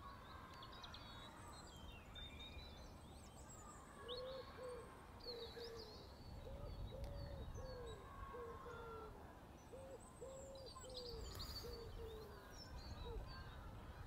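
A bird cooing in phrases of short, low, repeated notes, starting about four seconds in, with small birds chirping faintly in the background.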